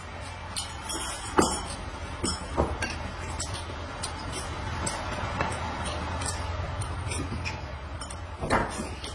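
Chopsticks and a spoon clinking and scraping against ceramic plates and bowls while eating, with a few sharper knocks, the loudest about a second and a half in and again near the end.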